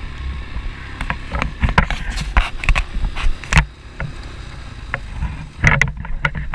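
ATV running with a low rumble, with many irregular knocks and rattles over it.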